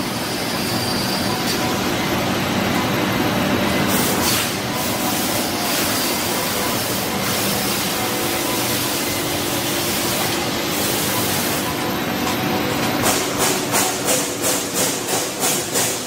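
Stainless steel coating pan machines and their air-handling units running on test, a steady mechanical hum with hiss. Near the end a rhythmic pulsing, about three beats a second, comes in over the running noise.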